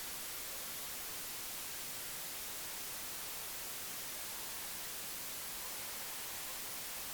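Steady, even hiss like static, with nothing else standing out.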